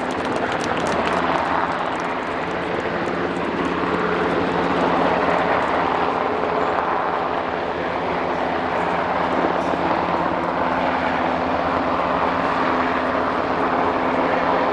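US Coast Guard MH-60T Jayhawk helicopter hovering low, its main rotor and twin turboshaft engines making a steady drone.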